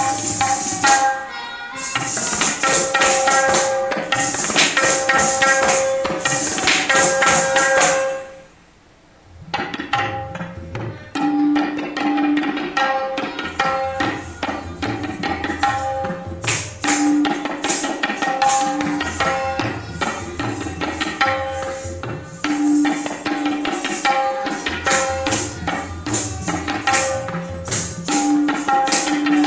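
Kathak dance accompaniment: tabla strokes under a short melodic phrase that repeats over and over, with bright jingling through roughly the first eight seconds. About eight seconds in the music drops almost to silence for a second, then the tabla and the repeating phrase resume.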